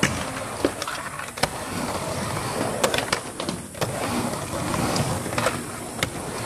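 Skateboard wheels rolling steadily across a mini ramp, with several sharp clacks as the board hits the ramp's lip and transitions.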